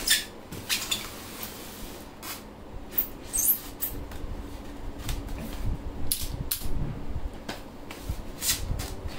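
Utility knife cutting the tape along the seam of a polystyrene foam case, with the foam squeaking and scraping in short, irregular strokes as the case is handled and turned.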